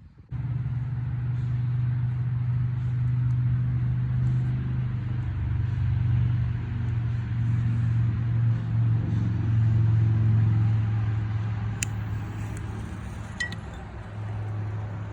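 A steady low hum, like a motor running, starting abruptly just after the start, with a couple of faint clicks near the end.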